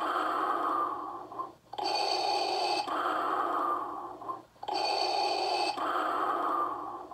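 Darth Vader's mechanical breathing sound effect played by the Star Wars Black Series Darth Vader electronic helmet's built-in sound unit. It runs as a steady loop of inhale then exhale, about one breath every two and a half to three seconds, with a short pause between breaths.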